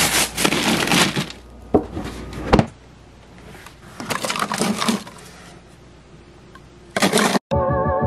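Loose ice cubes crunching and rattling against glass bottles as a cooler is packed, in several bursts with a couple of sharp knocks. Background music starts near the end.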